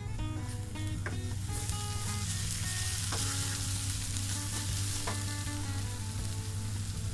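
Crushed ginger-garlic paste sizzling as it fries in a nonstick kadai, stirred with a wooden spatula, with a few sharp strokes of the spatula against the pan. The sizzle grows louder about a second and a half in.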